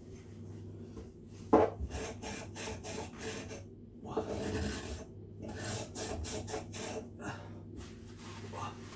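Paper towel rubbing and wiping a metal Linkert carburettor float bowl in repeated short scraping strokes, with one sharp knock about one and a half seconds in.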